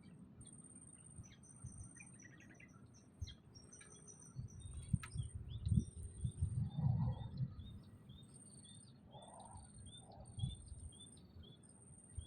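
Small songbirds chirping with many short notes and a run of quick repeated calls, over a very high, thin insect buzz that pulses on and off steadily. Low rumbling noise swells for a few seconds in the middle.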